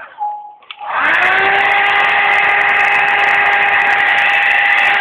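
Hair dryer switched on about a second in, its motor spinning up and then running steadily with a constant whine and rush of air.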